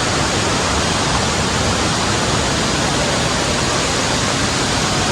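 Waterfall: falling water making a loud, steady rushing noise, even throughout with no breaks.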